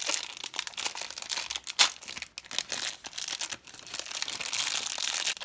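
Crinkling and tearing of a sealed mini collectible wrapper being torn open by hand, a dense run of crackles with one sharp rip about two seconds in.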